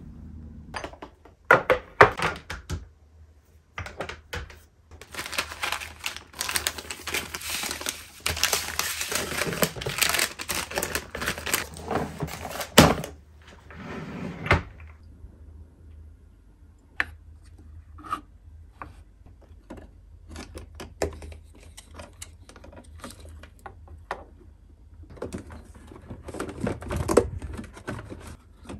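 Bottles and packaged food being handled and set into a refrigerator's door pockets and a plastic storage box: a run of light knocks and clicks of plastic and glass. A stretch of rustling and crinkling comes in the middle.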